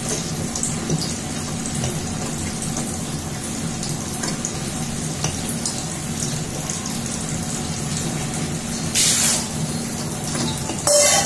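Bajaj tabletop wet grinder running steadily, its stone rollers churning soaked rice and urad dal into thick batter in the steel drum: a steady motor hum with a wet churning sound. Two short, louder bursts of noise come near the end.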